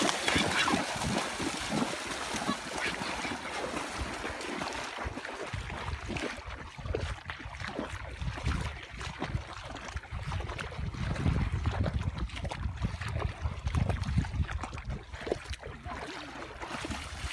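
Children splashing as they run into shallow water, then sloshing as they wade through it. After about five seconds a low rumble takes over.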